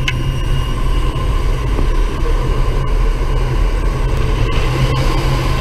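Steady drone of a jump plane's engine and propeller, with wind rushing in through the open door, heard from inside the cabin.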